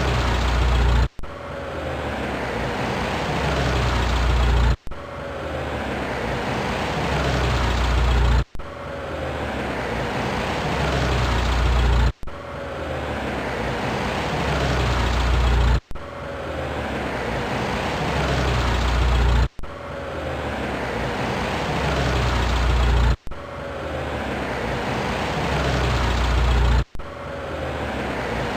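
A short car-engine recording played as a loop, repeating about every four seconds. Each pass is a noisy engine run whose low rumble swells louder, then cuts off abruptly before the next one starts.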